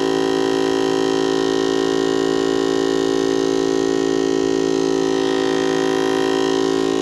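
Air compressor running steadily as it inflates a flat tire, a constant machine hum with a light hiss of air.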